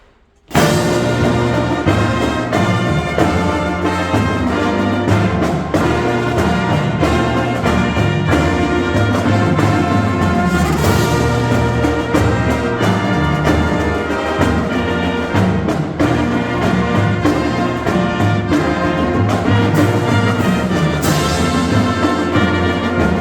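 A marching band's brass and percussion playing loudly, trumpets and trombones over drums, coming in all at once about half a second in.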